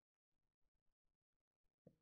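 Near silence with a few faint ticks; near the end, a short soft knock as a pair of pliers is set down on a wooden workbench.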